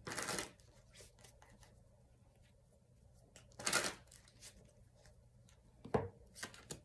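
Tarot cards being shuffled and handled: a short burst of shuffling at the start, a louder one about three and a half seconds later, then a few light clicks and taps near the end.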